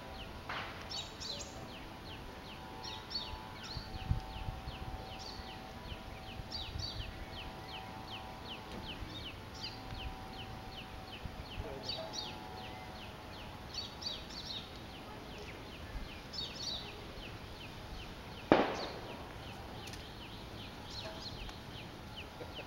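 Roadside forest ambience: fast, high, short chirps repeat several times a second, with faint steady tones beneath. A single sudden loud thump about three-quarters of the way through.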